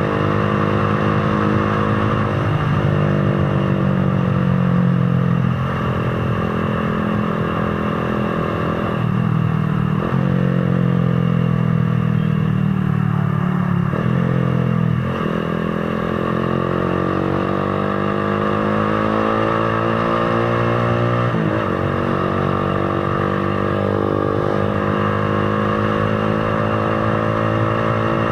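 Motorcycle engine running under way, its pitch rising and falling as the bike speeds up and slows. There are several sudden pitch steps, the sound of gear changes.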